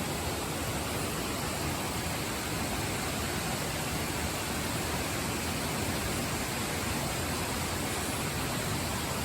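Steady rush of a waterfall, an even wash of falling water.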